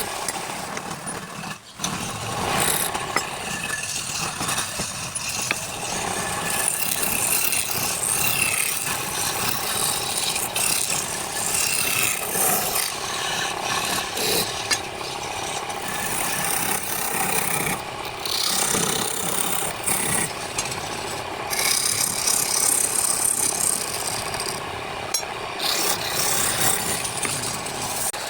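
Wood being worked by a tool, a continuous rasping, rubbing noise that shifts in texture throughout.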